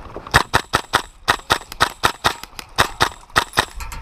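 Airsoft rifle firing a rapid string of about fifteen sharp shots, unevenly spaced at roughly four to five a second, as covering fire.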